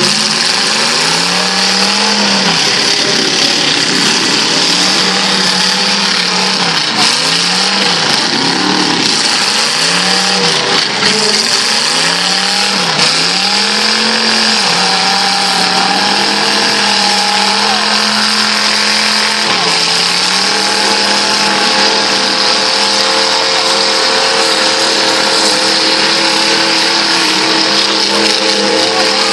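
Demolition derby cars' engines revving up and down again and again, then running at a steadier high speed, with the constant noise of several engines together.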